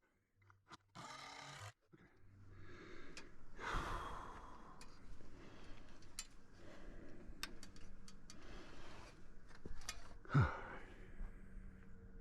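A person breathing hard and straining, with scattered knocks and scrapes, and one louder falling sound about ten seconds in.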